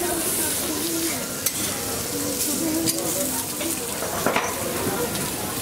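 Burger patties frying on a hot griddle: a steady sizzle, with a few sharp clicks along the way.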